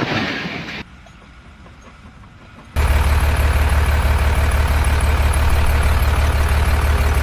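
Heavy machine running: a loud, steady low drone with a strong hum underneath that starts abruptly about three seconds in, after a quieter stretch.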